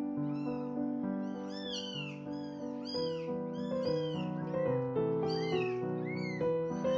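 Newborn kittens mewing: short, high, arched cries repeated about twice a second, over background music of held notes.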